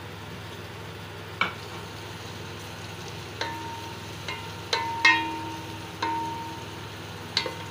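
Sliced onions frying in hot ghee in a large metal pot, with a steady sizzle. A spoon stirring them knocks against the pot about seven times, and several of the knocks leave the pot ringing briefly.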